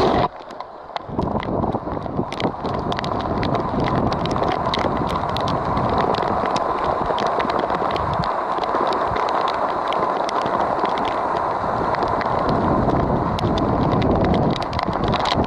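Heavy rain pattering on the boat and the water, with many sharp drop ticks over a steady hiss. A faint steady whine from the electric bow-mount trolling motor runs underneath.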